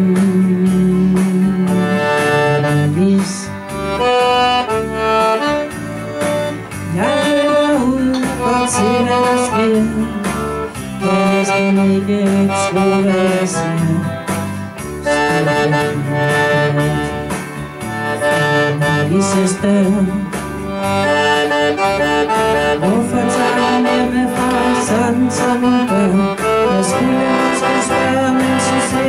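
Chromatic button accordion playing a song, with a woman singing over it through a microphone and PA.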